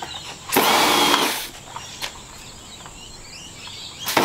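Pressure washer (water blaster) motor and spray starting about half a second in, running for about a second and stopping, then starting again near the end and running on. It is blasting the acid-softened barnacles off a boat hull.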